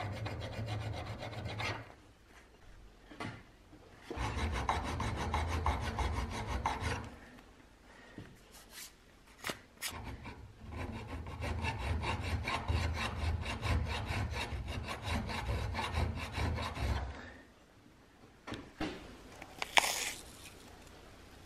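Hand file scraping across metal vise parts clamped in a vise, in three long spells of quick back-and-forth strokes with short pauses between. A sharp tap comes near the end.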